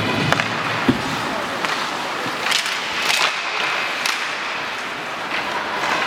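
Ice hockey play on the rink: skates scraping the ice and a handful of sharp clacks of sticks and puck, over a steady background of voices in the arena.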